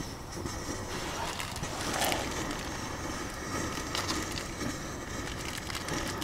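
Optimus Svea 123R brass gasoline stove being preheated: the priming flame burns with a soft, steady rushing noise, and there are a couple of light metallic clicks.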